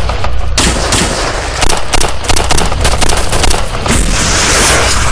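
Heavy rifle and machine-gun fire, many shots a second overlapping. Near the end comes a rushing blast as a rocket is fired from a launcher tube.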